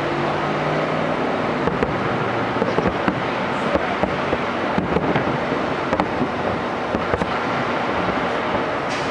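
Fireworks going off: many sharp, irregular pops and crackles over a steady rushing background noise.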